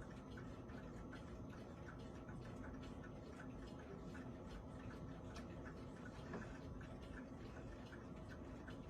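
Clock ticking steadily and faintly, with one slightly louder click about six seconds in.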